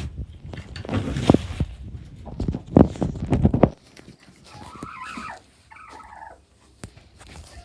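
Knocks and rumbling handling noise as a chicken coop is entered, a few sharp thuds among them. After that, hens cluck softly inside the coop.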